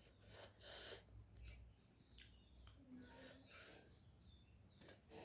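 Faint eating sounds: scattered soft mouth clicks and smacks while chewing rice and fish.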